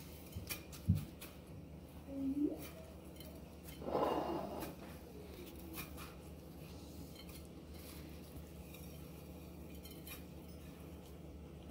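Faint crunching and rustling of panko breadcrumbs and small clicks against a glass pie dish as a gloved hand presses chicken into the crumbs. There is a thump about a second in and a brief louder rustle about four seconds in.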